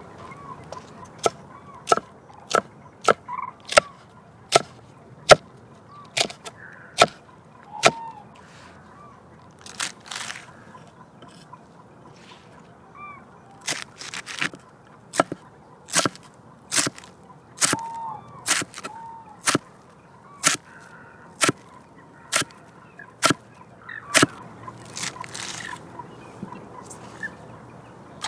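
Steady series of sharp knocks, about one every two-thirds of a second, in two runs with a pause of several seconds between: a knife chopping through vegetables on a cutting board. A few faint fowl calls sound in the background.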